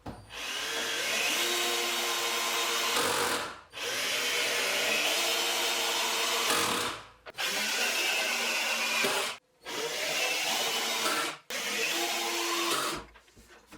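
Electric drill running in five bursts of two to three seconds each, stopping briefly between them.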